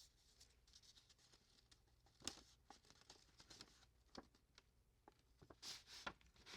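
Near silence broken by faint paper handling: a few soft taps and rustles as an envelope is opened and its contents drawn out, the sharpest about two seconds in and a small cluster near the end.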